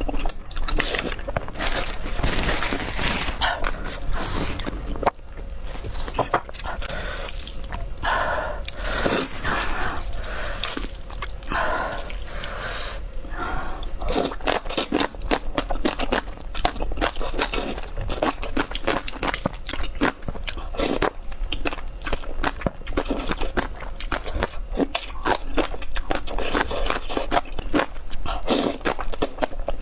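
Close-miked eating of spicy cuttlefish and noodles: a dense, continuous run of wet chewing, smacking, slurping and crunching.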